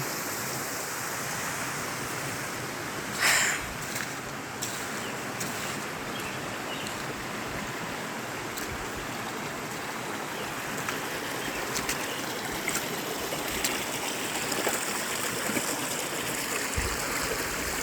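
Steady rush of stream water flowing over rocks. A short, louder whoosh comes about three seconds in, and faint scattered ticks follow in the second half.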